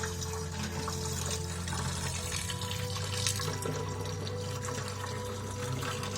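Background music over a steady splashing, pouring noise of liquid, with small scattered clicks.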